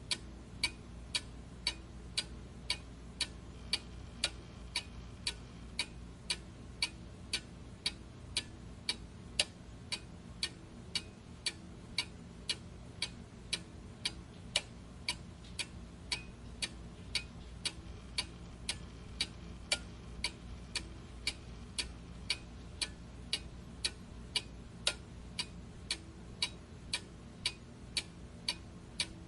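Steady, even ticking, about two sharp ticks a second, over a faint low hum.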